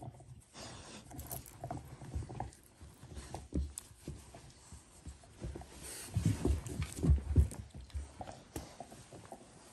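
Rottweiler puppy wrestling on its back with a person's hand on carpet: scuffling, rustling and bumping of paws and body, with a run of louder low thumps about six to seven and a half seconds in.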